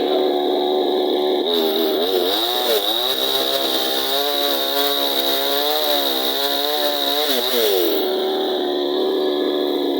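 Chainsaw running at high revs. About a second and a half in, its note drops and wavers under load with a rasping hiss, as when the chain cuts into wood. Near the end the note rises back to steady full speed.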